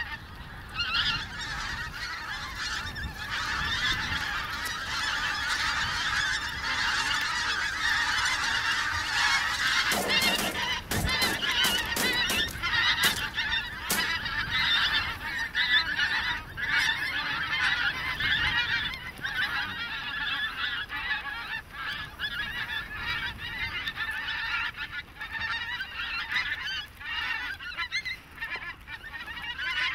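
A large flock of wild geese honking continuously overhead, many birds calling at once. A few sharp knocks stand out about ten to fourteen seconds in.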